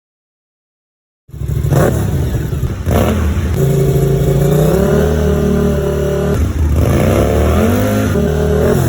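1000 cc V-twin sport motorcycle engine revving and accelerating. It starts about a second in after a moment of silence, climbs in pitch, holds steady for a few seconds, then climbs again near the end.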